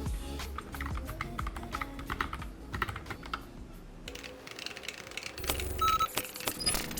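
Typing on a low-profile mechanical keyboard with Gateron Brown switches: a fast run of key clicks, easing off briefly in the middle before picking up again.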